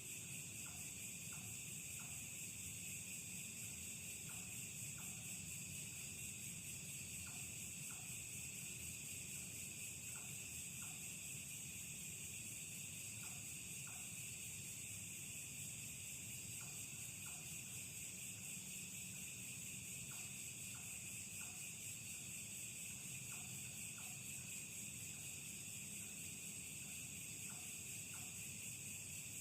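Steady, continuous chorus of night insects such as crickets, a high unbroken shrill. Faint short clicks come in groups of two or three every few seconds.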